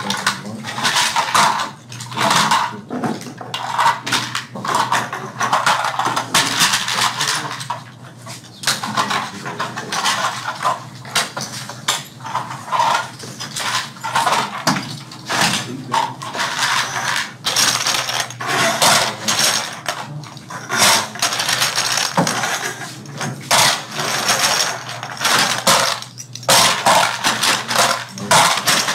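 Small toy airplane parts clattering and clicking as they are handled and fitted together, a dense, irregular run of light knocks and rattles.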